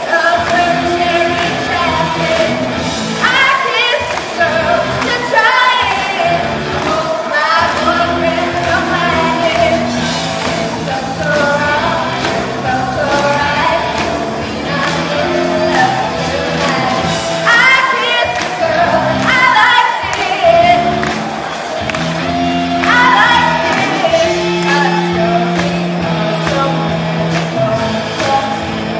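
A large group of performers singing together over a live band with electric guitar.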